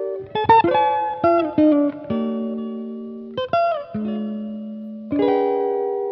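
Background music: a guitar picking notes and chords that ring on and fade, with a few notes bending in pitch.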